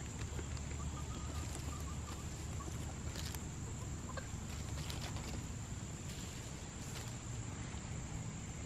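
Backyard hens foraging, giving a quick run of soft clucks in the first few seconds, with scattered light scratches and rustles in dry leaf litter.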